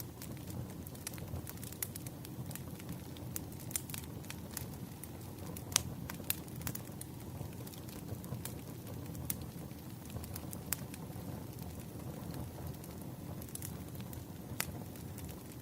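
Wood fire crackling: irregular sharp pops and snaps over a steady low rumble, with the sharpest pop about six seconds in.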